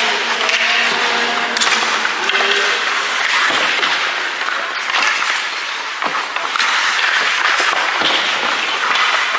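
Ice hockey game noise in a rink: a steady din of spectators cheering and clapping, with sharp clacks of sticks, puck and boards scattered throughout.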